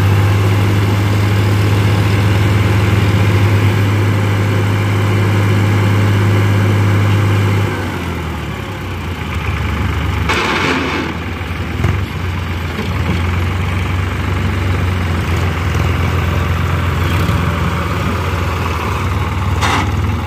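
Eicher 5660 tractor's diesel engine running at raised revs while its hydraulics lift a loaded tipping trailer, then dropping to a lower, quieter running about eight seconds in. A brief rushing noise comes about ten seconds in, and another short one near the end.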